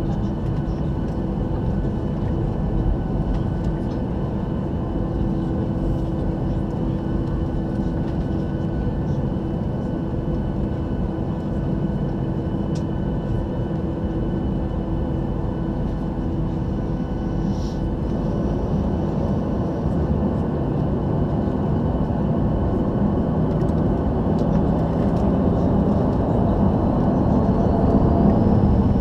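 Boeing 737-800's CFM56 jet engines running steadily, a dense rumble with a held whine over it, growing gradually louder over the last several seconds.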